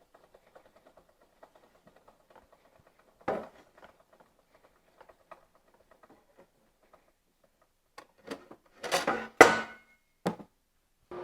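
Workshop handling noises: scattered faint clicks and rustles, a single knock about three seconds in, and a cluster of louder knocks and clatters near the end.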